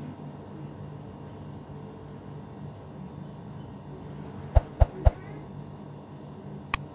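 A faint, fast, high-pitched pulsing chirp of a cricket over a low steady hum. About four and a half seconds in come three sharp clicks in quick succession, and another just before the end: the click sound effects of a subscribe-button animation.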